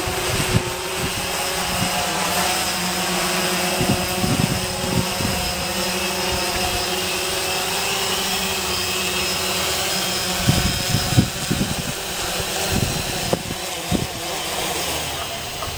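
Six-rotor camera drone's propellers whirring steadily as it hovers low and settles onto the ground, the whir dropping away near the end. Irregular low buffeting of wind on the microphone underneath.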